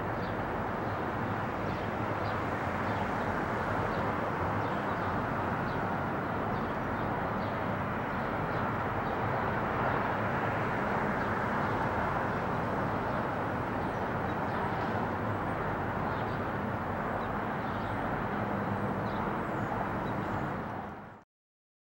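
Boeing 777 jet airliner passing on approach with its landing gear down, its engines making a steady rushing rumble that swells slightly about halfway through and cuts off suddenly near the end.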